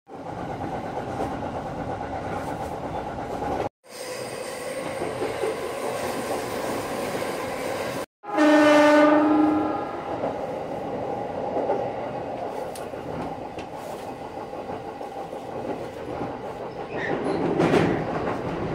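Running noise of a Sotetsu 12000 series electric train heard from behind the driver's cab, a steady rumble with wheel clatter on the rails. A little over a third of the way in, a train horn sounds once for over a second, the loudest sound here.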